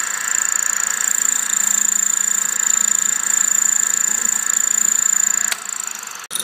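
Small bench lathe running, its electric motor and spindle giving a steady high whine. Shortly before the end the sound drops quieter, then cuts off for an instant.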